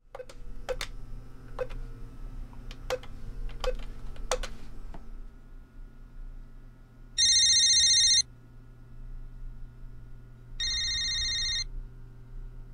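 A few sharp clicks in the first five seconds, then an electronic telephone ringing in one-second bursts about three and a half seconds apart, the second ring quieter than the first.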